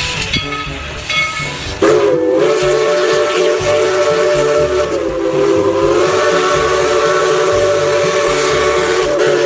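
Steam whistle on a full-size steam locomotive dressed as Thomas the Tank Engine, blowing one long steady chord that starts about two seconds in.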